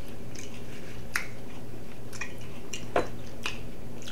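Chewing and wet mouth clicks from eating chicken wings, a scatter of small clicks with sharper ones about a second in and about three seconds in, over a steady low hum.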